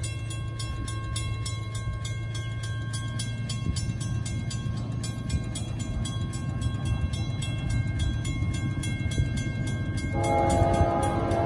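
Railroad grade-crossing warning bell ringing in rapid, even strikes, about four a second, over a low steady rumble. About ten seconds in, an approaching diesel locomotive's air horn starts to sound and the level rises.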